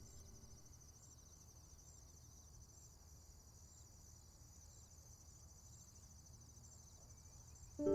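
Crickets chirping faintly in a steady, high, finely pulsing trill. Music notes come in right at the end.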